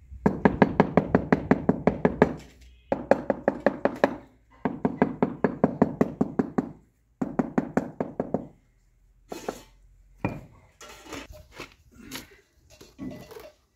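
Quick tapping of a hammer handle on a ceramic wall tile, bedding the tile into its cement mortar: four runs of rapid knocks, about seven a second, each run lasting one to two seconds. These are followed by a few softer, scattered knocks.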